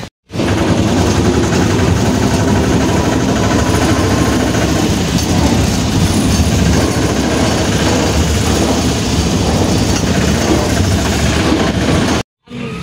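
Engine of a Vikram three-wheeler tempo running steadily as it drives, heard from inside its passenger cabin. The sound starts just after the beginning and cuts off abruptly near the end.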